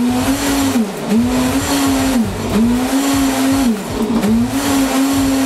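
Countertop blender motor running on a smoothie with ice, its pitch sagging and recovering about four times as the blades catch the ice, then running steady near the end.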